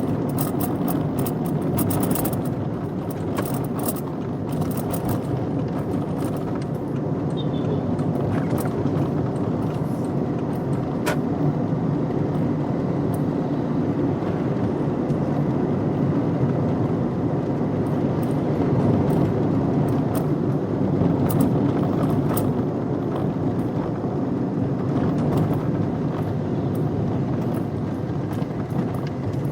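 Car driving along, with a steady rumble of engine and road noise and occasional light clicks and rattles.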